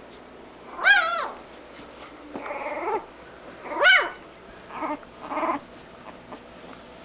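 Newborn Bouvier des Flandres puppies, five days old, crying. Two loud squealing cries rise and fall in pitch, about a second in and again about four seconds in. Rougher, buzzy whines come between and after them.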